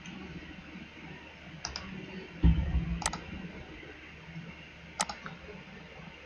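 Computer mouse clicks: a quick double click, then two single clicks a couple of seconds apart. A dull low thump, louder than the clicks, about two and a half seconds in.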